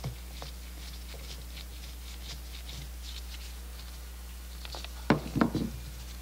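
Faint ticking and scraping of a screwdriver and gloved hands working on a Zenith-Stromberg CD-175 carburetor's starter box, then a short clatter of a few sharp knocks about five seconds in.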